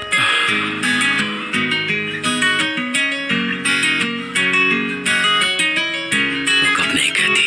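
Background music: a guitar with notes plucked at a steady pace, each ringing out and fading.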